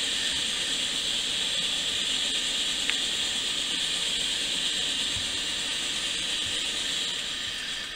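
Steady hiss of a Coleman 400A single-burner camp stove running under a kettle of water at a full boil, with a light click about three seconds in. The hiss drops in level near the end as the heat is turned down.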